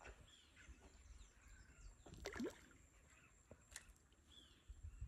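Faint outdoor ambience: scattered short bird chirps over a steady high hum, with two light knocks, one a little past two seconds in and another near four seconds.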